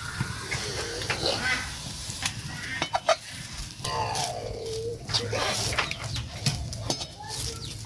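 A slotted metal skimmer scraping and clinking against a black iron wok as rice-flour dough fries in a little oil, with a light sizzle. An animal calls in the background about four seconds in.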